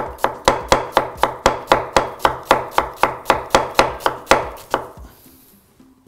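Chef's knife slicing fennel on a wooden cutting board: quick, even chops, about four a second, that stop about five seconds in.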